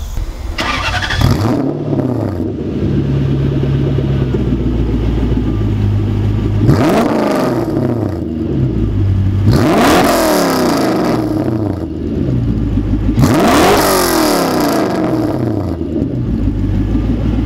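Toyota 1UZ V8 in a Nissan S13 heard at its exhaust, now through a 3-inch muffler: it starts up about a second in with a brief flare, idles with a V8 rumble, and is revved three times, each rev climbing and falling back to idle.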